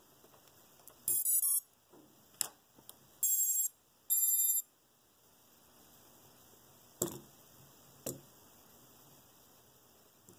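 Quadcopter ESCs powering up as the battery is connected and playing their startup chime through the DYS 1105 brushless motors. A quick rising run of short beeps is followed by two longer beeps about a second apart, the usual sign that the ESCs have initialised. A few sharp clicks come in between and afterwards.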